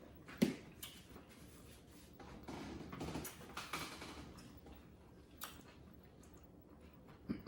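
Faint eating sounds: chewing and crunching of nachos, with a few sharp clicks and a stretch of soft crackly crunching in the middle.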